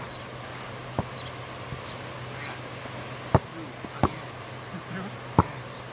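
Basketball thudding, four sharp hits at uneven intervals, the loudest about a third of the way in and again near the end, with faint voices in between.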